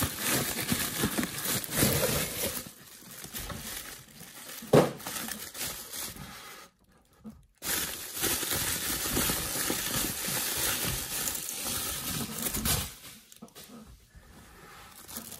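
Crinkling and rustling of bubble wrap and plastic packaging as a parcel is unwrapped by hand, with cardboard flaps being torn at the start and one sharp knock about five seconds in. A brief silence falls about seven seconds in.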